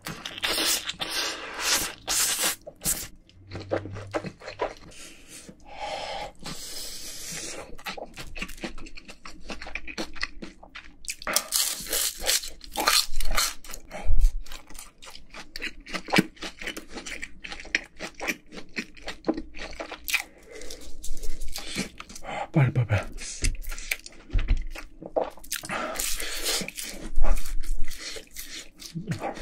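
Close-miked eating sounds: slurping and chewing spicy buldak stir-fried noodles, with a dense run of sharp crunches, smacks and wet mouth sounds, and fried chicken being eaten near the end.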